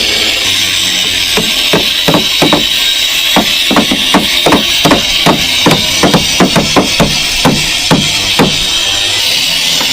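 Hammer striking nails into wooden formwork: a quick, uneven run of sharp knocks, about two to three a second, over background music.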